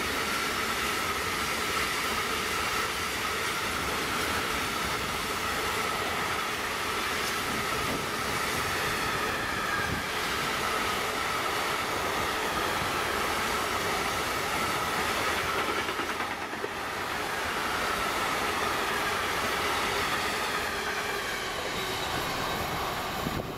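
Freight wagons of a grain train rolling past at speed: a steady rumble and clatter of steel wheels on the rails, with a high ringing tone running through it. The noise dips briefly about two-thirds of the way through.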